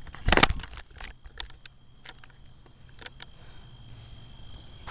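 A cluster of sharp clicks and knocks about half a second in, then several lighter scattered ticks, over a steady high chirring of crickets.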